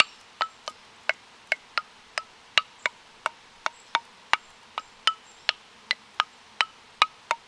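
Wooden xylophone bars struck with a stick in a steady rhythmic pattern: about two to three short, hollow knocks a second, each ringing briefly at one of a few different pitches.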